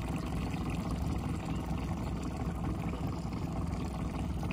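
Small boat's motor running steadily at low speed, a low, even hum with no change in pitch.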